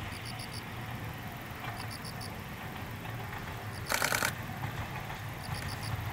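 Open-air field ambience: a steady low rumble under a high chirp of about four quick notes that repeats every couple of seconds. About four seconds in comes one brief, loud rattling burst of four quick strokes.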